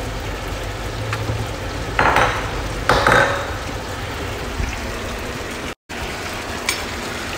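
Kitchen clatter over a steady stove-side hiss: a ceramic bowl and cookware knock and clink twice, about two and three seconds in, as greens go into a pot of soup on the gas stove.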